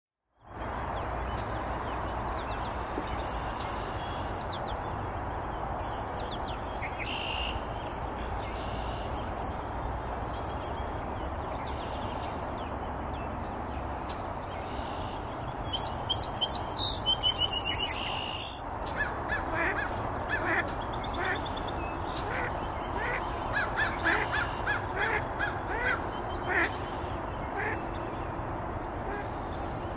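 Mallard hen quacking: a loud burst of calls about halfway through, then a run of short, repeated quacks. Underneath is a steady background hiss with faint songbird chirps.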